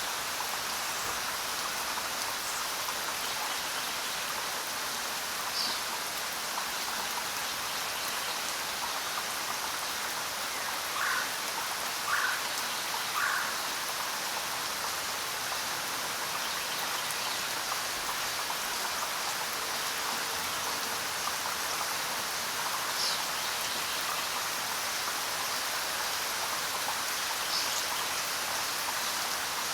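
Steady rain falling in a forest, an even hiss of drops. A few brief chirps stand out over it: three about a second apart partway through and single ones here and there.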